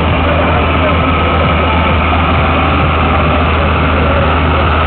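Fendt 308 LS farm tractor's diesel engine running hard and steady under load as it drags a weight-transfer sled down a tractor-pull track: a loud, even, deep drone.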